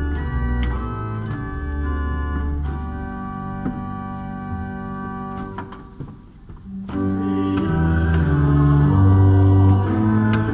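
Church pipe organ playing a hymn in held chords. The sound drops away briefly about six seconds in, then the organ comes back in louder with the next phrase.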